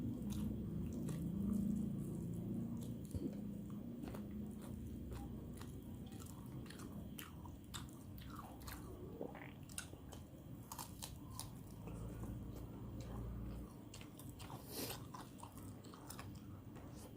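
A person chewing and biting food close to the microphone, with crunchy bites and many sharp mouth clicks scattered throughout.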